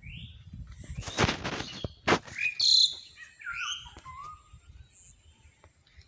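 Birds chirping: a quick run of short calls sliding up and down in pitch, loudest about two and a half seconds in and thinning out by four seconds. Just before them, a brief rustling noise and a sharp click.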